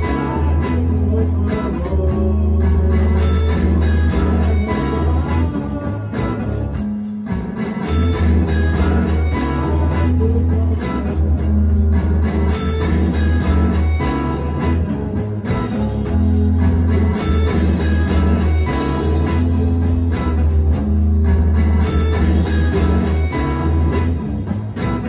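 Rock music from a Stratocaster-style electric guitar played over bass and drums, with a heavy, steady low end that drops out briefly about a third of the way in.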